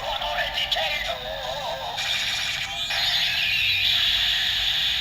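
Kamen Rider Ex-Aid toy Gashat cartridge playing its electronic sound effects: a synthesized voice and music through its small speaker, thin with no bass. About three seconds in, a brighter, steadier tune takes over.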